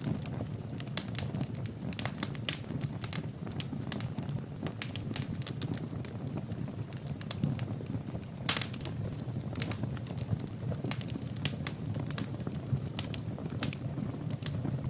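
Wood fire burning in a fireplace: a steady low rush of flames with frequent crackles and pops of burning logs, one louder pop about halfway through.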